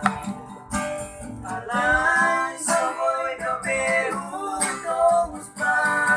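Acoustic guitar strummed as accompaniment to a singing voice holding long, bending notes, with the singing coming in about a second and a half in.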